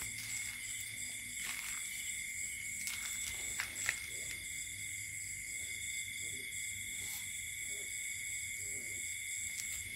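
Night insects, crickets, calling steadily in several high-pitched tones, one of them pulsing in a fast even rhythm. A couple of faint clicks come about four seconds in.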